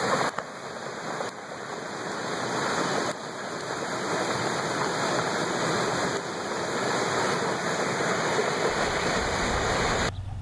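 Muddy flash-flood water rushing out of a concrete culvert and down a gully: a loud, steady rushing. It drops away abruptly near the end.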